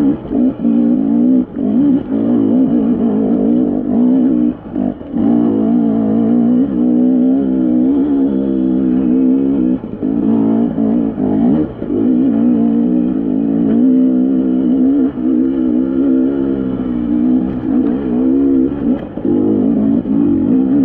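Dirt bike engine pulling hard up a steep, rocky climb, its revs rising and falling with the throttle and dropping off briefly a few times.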